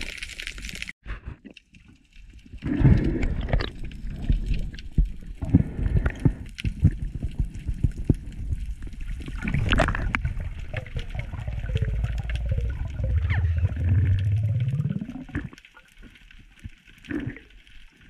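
Water rushing and gurgling around an underwater camera housing during a freedive, dense with small clicks and knocks. A low hum builds and rises in pitch near the end before the sound drops away.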